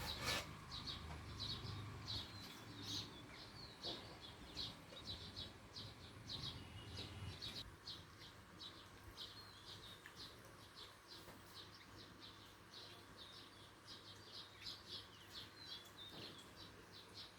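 A flock of small birds chirping continuously, with many short, high chirps a second overlapping one another. A low hum sits underneath for the first seven seconds or so.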